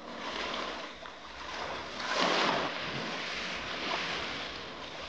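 Sea waves washing in a steady hiss, swelling to a louder surge about two seconds in, with some wind on the microphone.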